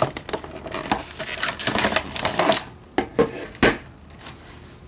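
Stiff clear plastic clamshell packaging crackling and crinkling as it is pulled open. The crackling stops about two and a half seconds in, followed by three sharp knocks.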